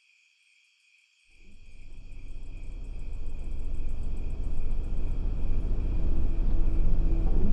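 Crickets chirping steadily. About a second in, a low car-engine rumble comes in under them and grows steadily louder.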